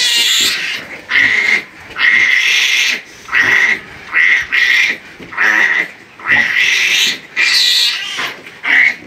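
Newborn piglet squealing over and over: shrill cries of under a second each, about ten in all, with short gaps between.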